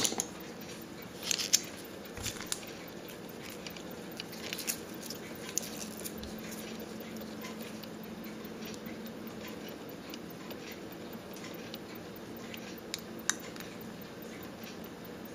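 Soft rustling of a thin plastic sheet and scattered light clicks of steel hand levers against a watch dial, with a small cluster of clicks about a second and a half in and another sharp click near the end.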